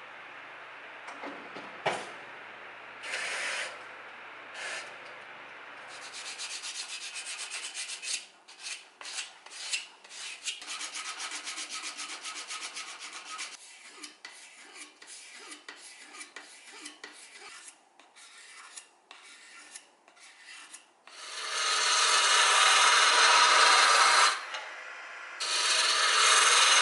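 Rasping strokes of a hand file on a steel blade held in clamps, quick and steady at first, then in shorter bursts. Near the end a wood lathe runs, with a gouge cutting a spinning wooden spindle, much louder, in two long stretches.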